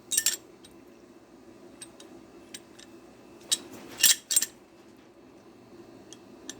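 Steel pipe wrench being handled, its metal parts clinking: a group of clinks at the start, a few faint ticks, then a louder cluster of clinks about three and a half to four and a half seconds in.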